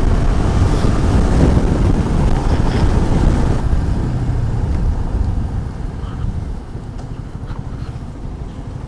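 Wind rushing over the microphone with road noise from a Yamaha R15 V3 motorcycle being ridden, without a clear engine note; it grows quieter about six seconds in.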